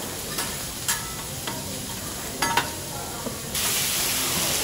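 Food sizzling on a teppanyaki griddle, with a few sharp clinks of a metal spatula on the hot plate. The sizzle grows suddenly louder about three and a half seconds in.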